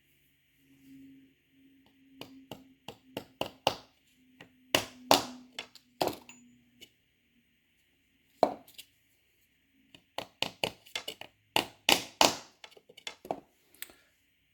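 Series of sharp clicks and knocks from staples being cut and fastened to attach the ribbon to a wooden tie. The clicks come in two bursts, the second starting about ten seconds in, with a single knock between them.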